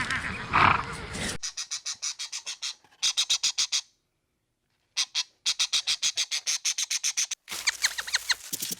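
A bird's rapid chattering call, given in several bouts of quick high-pitched pulses about eight a second, with a few short chirps near the end. It follows the tail of a lower animal call in the first second.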